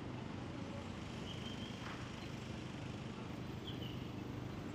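City street ambience: a steady hum of traffic, with two faint short high squeaks, one about a second and a half in and one near the end.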